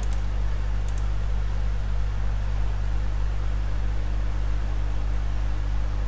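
Steady low electrical hum with a hiss, with a couple of faint clicks near the start and about a second in.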